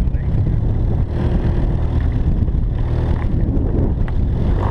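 Evinrude outboard motor running steadily, a low even drone.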